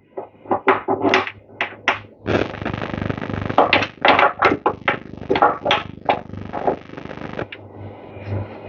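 Metal parts of a small engine's electric starter motor being handled and worked on: a quick run of knocks, clicks and clinks, with a rougher scraping or rattling noise through the middle.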